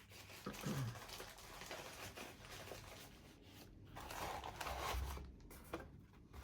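Light clicks and rustling from small parts of a model locomotive being handled and rummaged through on a workbench.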